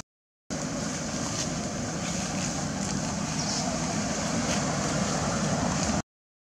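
Steady rushing outdoor background noise with no clear single source, cut to silence for about half a second at the start and again near the end.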